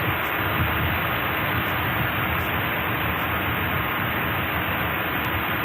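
Steady hiss of receiver static, an even noise with no tone or rhythm in it.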